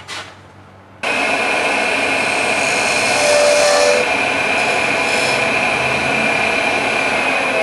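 Wood lathe running while a turning tool cuts a walnut tenon down toward the size of a coupling nut, a steady scraping with a constant high whine; the cutting starts abruptly about a second in after a brief clatter.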